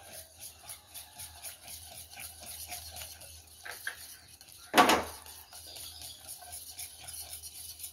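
Wire whisk stirring mashed banana and melted butter in a glass bowl: a run of faint quick clicks and scrapes against the glass, with one louder knock about five seconds in.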